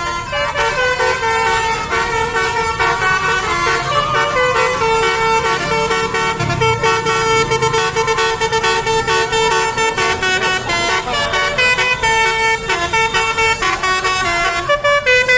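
Indonesian 'telolet' multi-tone bus air horns playing fast tunes back and forth in a horn battle between two buses, the notes changing in quick steps without a break.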